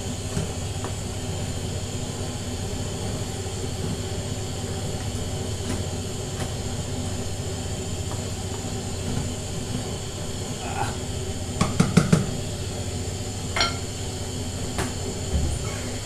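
Wooden spoon stirring diced meat in a large aluminium cooking pot so it doesn't stick, with a few clinks and knocks against the pot over steady background noise. Three quick knocks come close together about twelve seconds in, the loudest sounds in the stretch.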